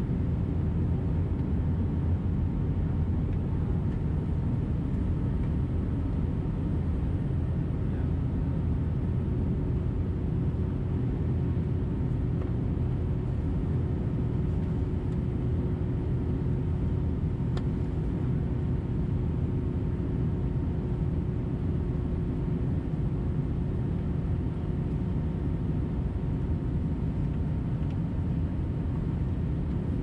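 Airbus A320-214 cabin noise at a window seat in flight: the steady low rumble of its CFM56 engines and the airflow past the fuselage, with a faint steady whine over it. A second low hum joins about ten seconds in.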